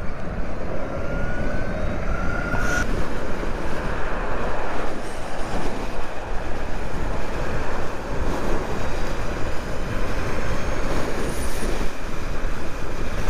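Wind rush on the microphone and tyre and road noise from a Zero SR/F electric motorcycle accelerating at speed, with no engine sound, only a faint whine rising in pitch over the first three seconds.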